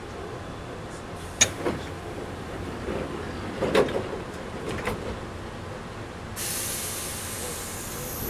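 Inside a Toyohashi Railway 1800 series train car, with a low steady rumble in the background. A few sharp knocks come in the first five seconds, then a steady hiss starts suddenly about six seconds in and runs on until a loud thump near the end.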